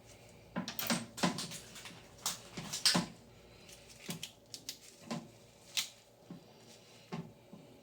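Irregular clicks and light knocks of plastic toilet-tank parts being handled: the rubber refill hose and plastic fill valve being fitted and positioned, with a quick cluster of clicks in the first few seconds and scattered taps after.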